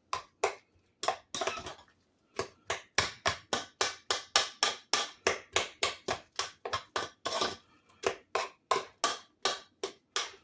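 Boiled russet potatoes being mashed in a metal Instant Pot inner pot, the masher knocking against the pot with sharp clanks about three times a second, with a short pause about two seconds in.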